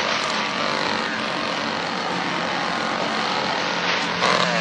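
Chainsaw engine running loudly and steadily, revved up and down near the end.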